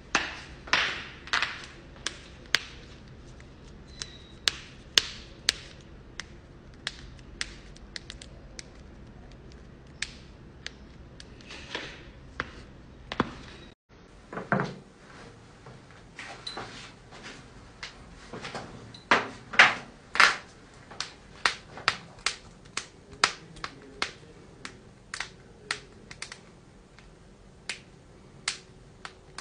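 Joints cracking: dozens of sharp pops and clicks in quick, irregular succession, some single, some in runs. The background cuts out briefly about 14 seconds in, and the pops carry on over a different background.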